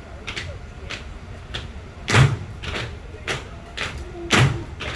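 Tap shoes striking the floor in a steady rhythm: lighter taps about every half second, with two heavier stamps about two seconds apart.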